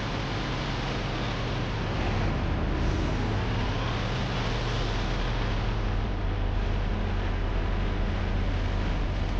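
Heavy engine running steadily under a dense mechanical noise, a little louder from about two seconds in.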